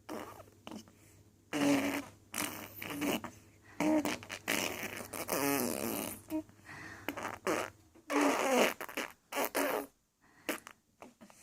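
A baby blowing raspberries: a series of short, buzzing lip sputters, some with a bit of voice in them.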